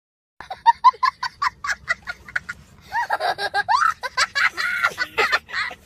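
A child laughing hard: a quick run of short, high 'ha' bursts, then longer squealing laughs with rising and falling pitch from about three seconds in.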